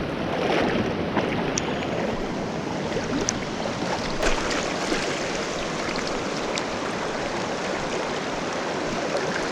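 Creek water running over riffles: a steady rushing wash with a few faint ticks in it.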